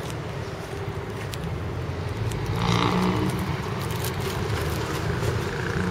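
Steady low hum of road traffic, getting louder about two and a half seconds in as a vehicle passes, with a few small clicks of the handheld camera being handled.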